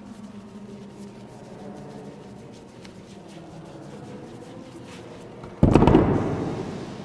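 Faint rubbing and dabbing of a hand and tissue over wet watercolour paper, then, about five and a half seconds in, a sudden loud knock and rustle that dies away over about a second.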